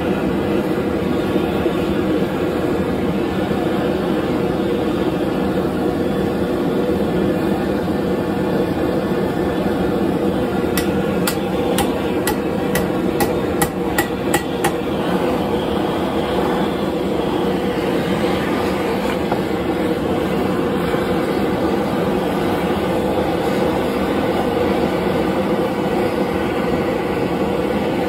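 Hand-held propane torch burning steadily as it heats a nail. About eleven seconds in comes a quick run of about ten hammer blows, speeding up, as the hot nail is bent over the anvil foot.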